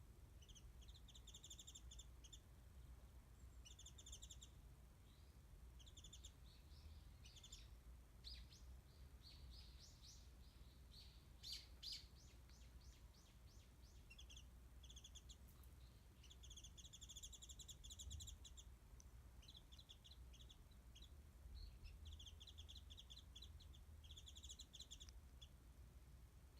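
Japanese white-eye singing: faint, short bursts of rapid, high-pitched twittering trills, repeated again and again over a steady low hum of background noise.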